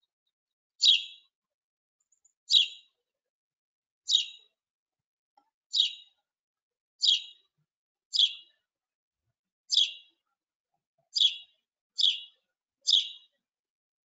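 House sparrow chirping: ten short, separate chirps, about one every second and a half, coming a little faster near the end. This is the species' classic call.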